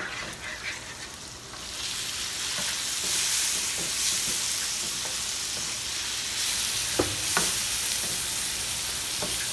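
Whole shell-on shrimp frying in hot garlic butter in a square copper-coloured pan: a steady sizzle that swells about two seconds in as they hit the fat. A wooden spoon stirs them, scraping and knocking a few times against the pan.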